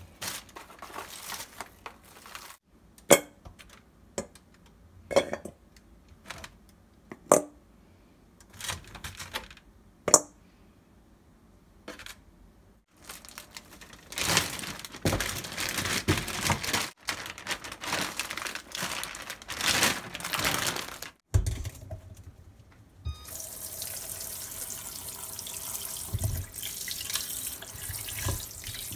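Plastic wrap crinkling as it is peeled off raw beef short ribs, then four separate knocks, each with a short ring, as pieces of rib land in a stainless steel bowl. More loud crinkling of the wrap follows, then from about two-thirds of the way through, tap water runs steadily into the steel bowl in a kitchen sink as the ribs are rinsed by hand.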